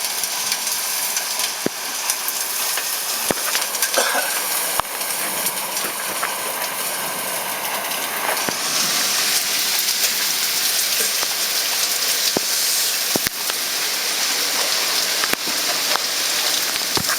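Heavy rain from a severe thunderstorm pouring down steadily, with scattered sharp hits, and growing heavier about halfway through.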